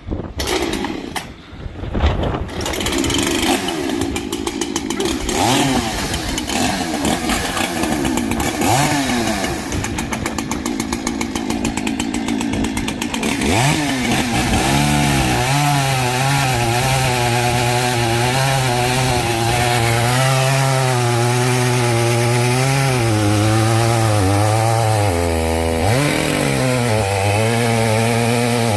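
Two-stroke chainsaw running. About halfway through it revs up and is held at high speed, its pitch wavering and sagging as it cuts through a chunk of dense, dried elm.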